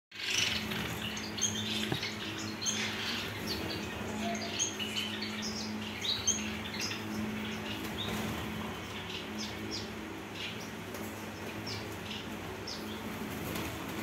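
White Java sparrows chirping in a cage: many short, high chirps, with a steady low hum underneath.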